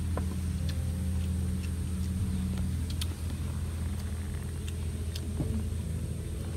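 Steady low engine hum, with scattered light clicks over it.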